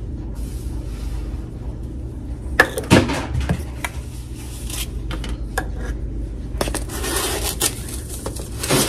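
Sugar poured from a plastic measuring cup into a nonstick pan, with a few sharp knocks of the cup against the pan about three seconds in. Later come clicks and a rustle as a canister of granulated chicken soup base is handled.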